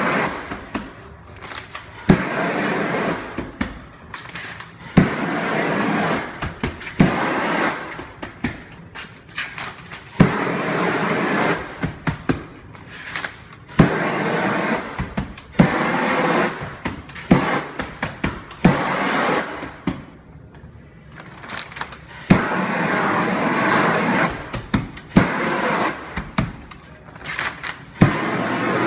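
Propane shrink-wrap heat gun firing in bursts of one to three seconds, with sharp snaps and clicks in between.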